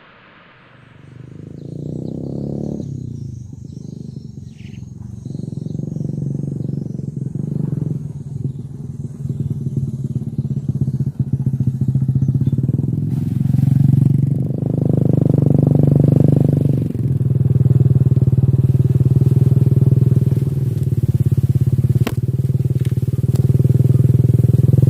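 A small petrol engine starts up about a second in and runs, its speed rising and falling, then holds a steady high speed through the second half.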